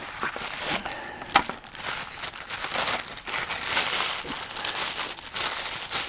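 Plastic packaging crinkling and cardboard rustling as a ceiling speaker is unpacked from its box by hand, with one sharp click about one and a half seconds in.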